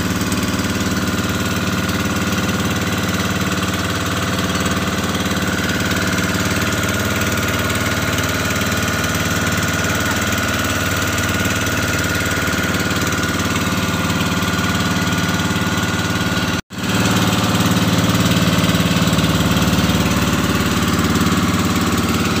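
Motorized outrigger boat's engine running steadily under way. The sound drops out for an instant about three-quarters of the way through, then resumes a little louder.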